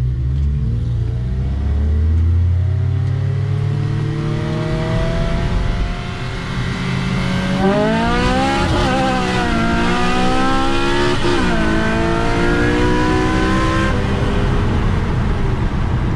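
Four-cylinder cars at full throttle in a street drag race, engines revving up hard. The pitch climbs and drops sharply at upshifts about 9 and 11 seconds in, then eases off near the end.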